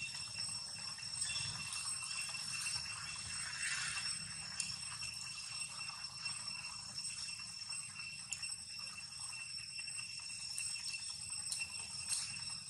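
Steady high-pitched drone of insects, with faint scattered ticks and a low rumble underneath.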